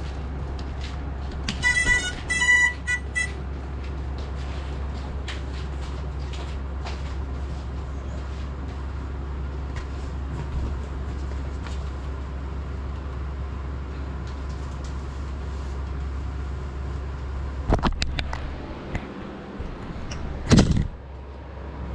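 A Cinelog 35 cinewhoop FPV drone flying with a steady propeller hum, with a few short high electronic beeps about two seconds in. A sharp knock comes near eighteen seconds, then a loud crash impact about twenty seconds in as the drone hits and tumbles.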